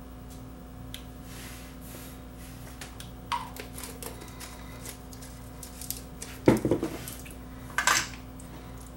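Small metal tools clinking and knocking against each other and the workbench as they are handled: a few light clicks, then a louder clatter about six and a half seconds in and another near eight seconds.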